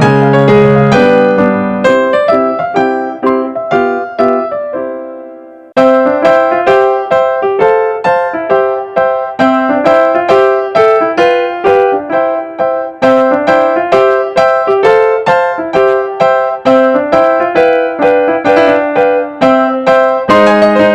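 Background piano music: a melody of plucked-sounding keyboard notes that fades out about five seconds in and starts again with a new phrase a moment later.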